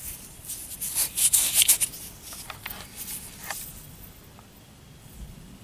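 Handling noise: a cluster of rustling and scraping in the first two seconds, then a few scattered light clicks, as a hand turns a broken flint point close to the microphone.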